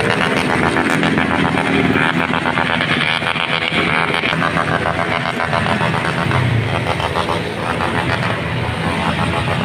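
Motorcycle engines running close by, their pitch rising and falling as the bikes rev and move.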